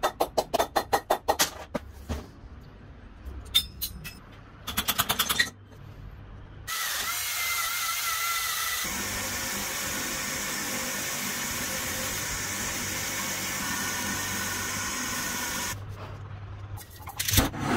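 Workshop power tools: short runs of rapid rattling clicks, then a tool running steadily with a high whir and hiss for about nine seconds before it stops.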